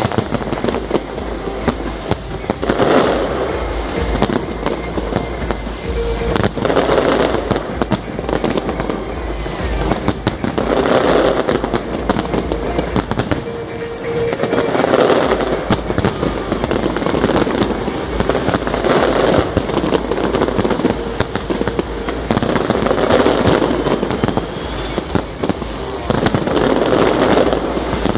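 Fireworks going off without a break: many overlapping bangs and crackles, with music playing underneath and swelling about every four seconds.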